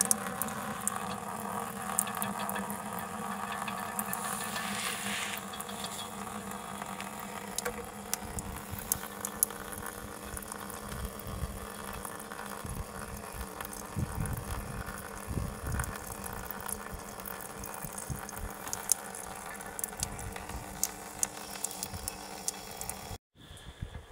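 Thin stream of water pouring from a metal pipe into a plastic tub: a steady trickle and splash with many small drip-like clicks. It breaks off for a moment near the end.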